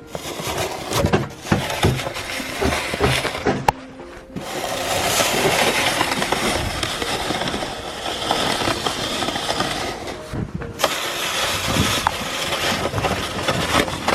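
Snow shovel scraping and scooping through snow: irregular scrapes and knocks, then a long continuous scrape that stops abruptly about eleven seconds in, followed by more short scrapes.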